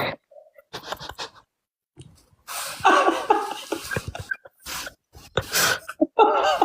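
A person's breathy vocal sounds: a wavering, unworded voice for about two seconds, then a few short gasping breaths.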